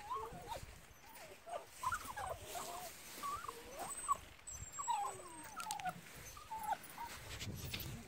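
A dog whining and whimpering: a quick string of short, wavering whines, one after another.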